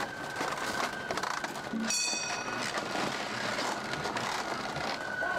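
Large wooden wheels of a Gion Matsuri hoko float grinding and squealing as the float is hauled along the street, with a sharper high squeal about two seconds in.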